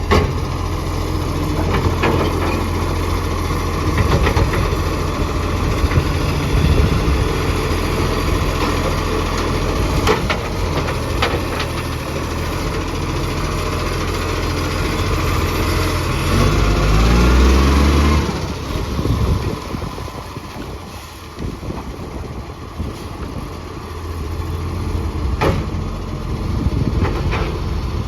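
Recycling garbage truck's engine running with an exhaust leak. About sixteen seconds in it revs up with a rising pitch, then drops away to a quieter spell before the rumble comes back, with a few sharp knocks along the way.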